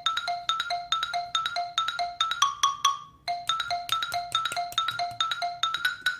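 Music: a bright melody of short mallet-percussion notes in a steady quick rhythm, breaking off briefly about halfway through.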